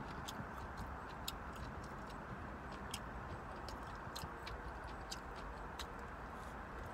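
Close-up chewing of crisp fried catfish and fries: irregular sharp crunches and mouth clicks, a few a second, over a steady background hiss.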